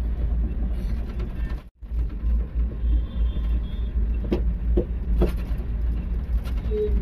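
Steady low rumble inside a moving cable-car gondola cabin. The sound cuts out briefly a little under two seconds in, and a few faint clicks come around the middle.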